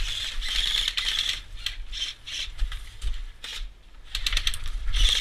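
Airsoft electric guns firing in several short, rapid bursts, each a fast mechanical rattle.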